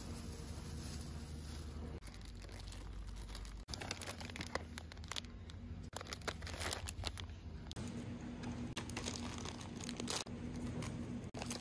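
Plastic and paper packaging crinkling and rustling as snacks are picked up and handled, in many short crackles, over a steady low hum.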